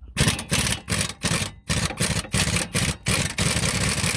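Impact wrench hammering on a 19 mm wheel-hub mounting bolt in a string of short trigger pulls, then longer runs in the second half, breaking the bolt loose.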